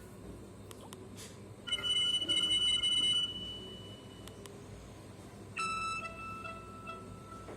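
Nokia feature phone playing two short electronic alert tones. A few faint clicks come first; the first, brighter tone sounds from about 1.7 s in for about a second and a half and rings on briefly. A second, lower tone starts about 5.6 s in and fades away slowly.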